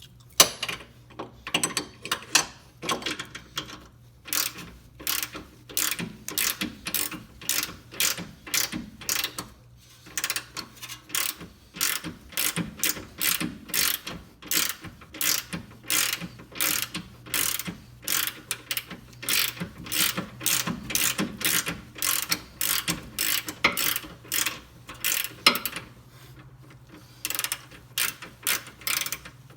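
Hand ratchet wrench clicking in a steady rhythm, about two or three clicks a second, as it is swung back and forth to turn a fastener, with short pauses a few times.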